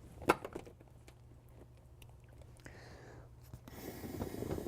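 Air being blown into a folding canoe's air sponson tube, with handling noise: one sharp click, a quiet stretch, then a breathy rush of air in the last second or so.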